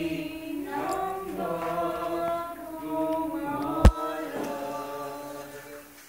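Unaccompanied voices singing a slow hymn or chant in long held notes, with one sharp knock about four seconds in; the singing fades near the end.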